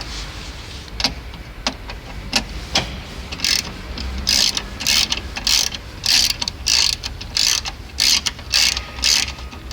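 Ratcheting hand tool driving a screw home: a few single clicks, then a run of short rasping ratchet strokes, about one and a half to two a second.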